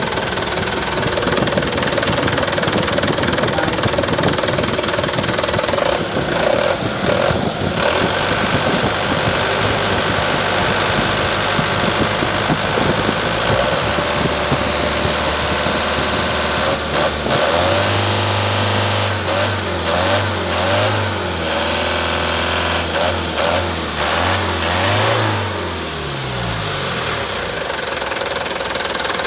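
Mitsubishi Canter 136 PS four-cylinder turbodiesel engine running with a steady diesel clatter. Its speed picks up a little past halfway and falls back near the end. It is being test-run after an oil and filter change, with oil pressure up.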